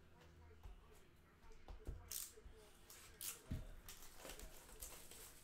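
Faint handling of trading-card boxes and packs on a desk: a few short crinkles and soft knocks.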